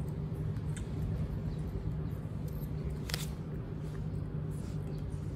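Steady low background hum with a few faint clicks, the clearest a little over three seconds in.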